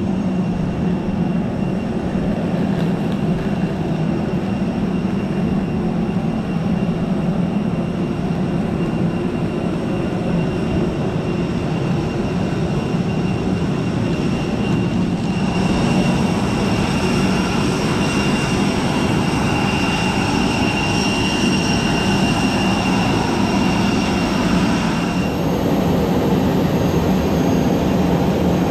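Apron noise of jet aircraft turbines running: a steady loud rush with a low hum, joined about halfway by a high whine that drops away near the end.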